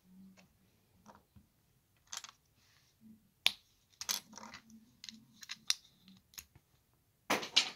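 Plastic LEGO bricks clicking and tapping as they are handled and pressed onto a model, a scatter of sharp irregular clicks with a louder cluster near the end.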